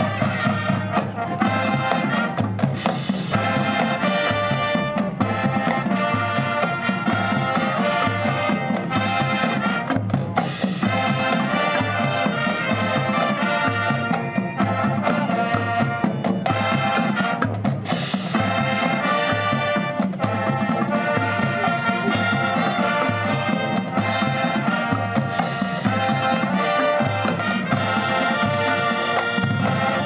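High school marching band playing its field show: brass carrying full sustained chords and melody over drum and percussion accents.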